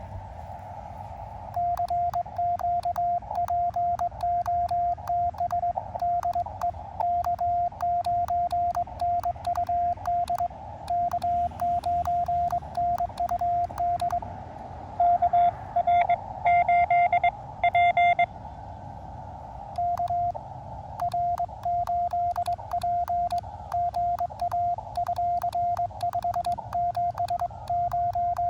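Morse code in a tone of one pitch from an Elecraft KX2, keyed by hand with a cootie (sideswiper), starting about a second and a half in and running on in dots and dashes. About halfway through, a louder keyed tone, another station's signal, comes in for a few seconds. Between the keying, hiss from the receiver's narrow CW filter.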